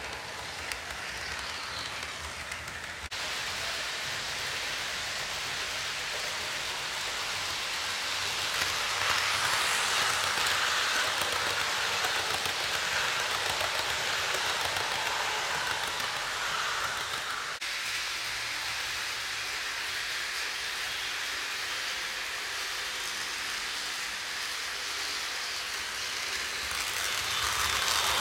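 HO scale model passenger train rolling along its track: a steady rolling rattle of the wheels on the rails, growing louder about a third of the way in and again near the end as the cars pass close.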